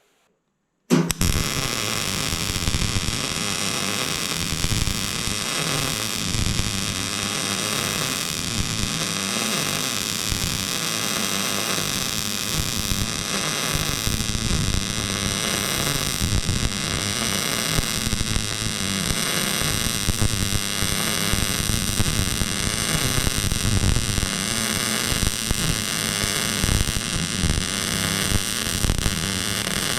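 MIG welding arc striking about a second in and running as one long continuous bead: a steady crackling sizzle over the welder's hum.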